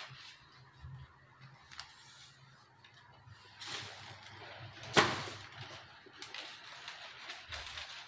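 Handling noise from a hand rubbing and tapping a varnished wooden board: scattered light clicks and a brief rustle, with one sharp knock about five seconds in that is the loudest sound.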